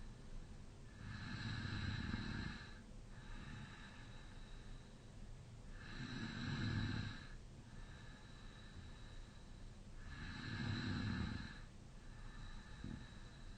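A man snoring through a slightly open mouth: three long snoring breaths with a low rumble, about four to five seconds apart, and quieter breaths between them.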